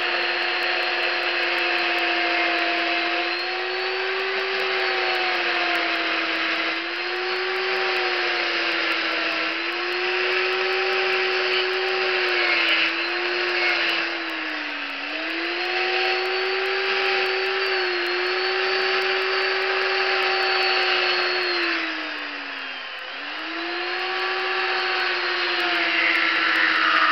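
Two-stroke chainsaw running at high revs while its chain cuts into a wood block, the engine pitch sagging each time the bar bites in and picking back up between cuts. It bogs down sharply twice, about halfway through and again a few seconds later, then revs up near the end.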